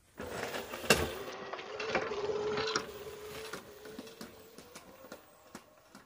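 Homemade 750 W electric scooter's motor whining steadily as it pulls away over a dirt track, with rolling rattle and a sharp knock about a second in. The sound fades away after about three seconds as the scooter rides off.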